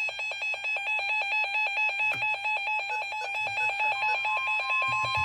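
Weather radio receiver's alert alarm: rapid, even electronic beeping of alternating tones, about ten beeps a second. About four seconds in, a steady single warning tone joins it, the NOAA Weather Radio alarm tone that precedes a broadcast warning.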